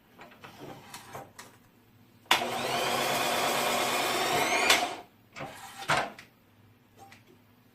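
Electric motor of an automatic tornado-potato spiral-cutting machine running for about two and a half seconds, its whine rising in pitch, then stopping abruptly. A few light knocks come before it and two louder knocks after it.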